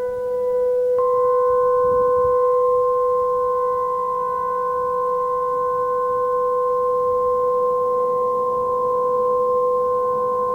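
Emergency Alert System attention signal: a steady electronic alert tone that gets louder about a second in and holds unbroken, over a lower steady tone.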